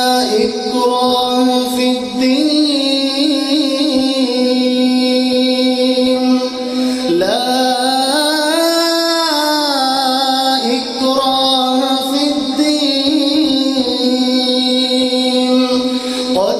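A man reciting the Quran in the melodic tilawat style, holding long drawn-out notes, with a long rising and falling phrase midway. A steady tone at one pitch runs underneath.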